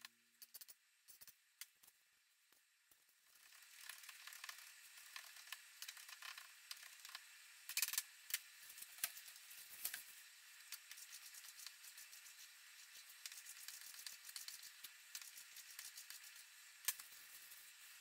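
Faint kitchen food-prep sounds: a few knife taps on a plastic cutting board, then from a few seconds in a steady crinkling of plastic food wrap with scattered ticks and clicks.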